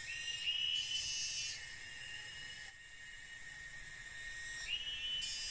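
Cicadas droning steadily at a high pitch, with a louder call that rises in pitch and then holds, once at the start and again near the end.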